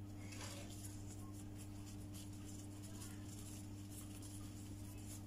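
Faint rustling and handling of a thin lumpia wrapper and plastic gloves as a spring roll is rolled, over a steady low electrical hum.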